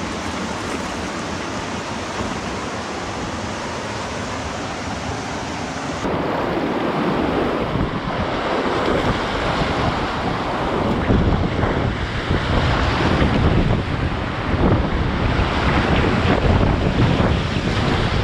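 Rushing white water of a river rapid heard from a kayak. About six seconds in it grows louder and rougher, with repeated splashes as waves break over the bow.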